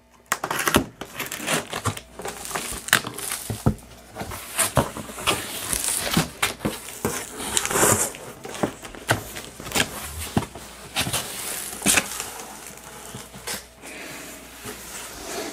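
A cardboard shipping box being opened by hand: packing tape torn from the seam and the flaps folded back. It comes as irregular scrapes, crinkles and knocks.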